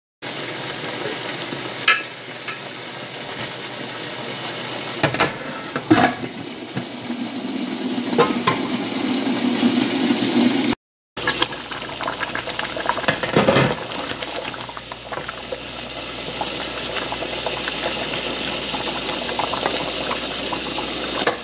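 Potato curry gravy simmering and bubbling in a pan over medium heat, a steady sizzling hiss, with a few sharp knocks from the pan and wooden spoon.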